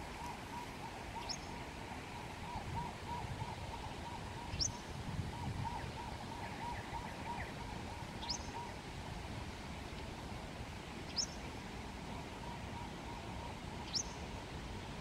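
Japanese wagtail calling: five short, sharp high calls, each dropping in pitch, about every three seconds, over the steady rush of a shallow stream. A faint run of quick, low repeated notes goes on through the first half.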